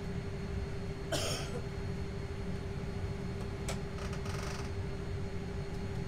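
Steady low hum of a Boeing 787 cabin's air conditioning with a constant tone over it; about a second in, a person clears their throat briefly, and a little after the middle there is a sharp click followed by a short rattle.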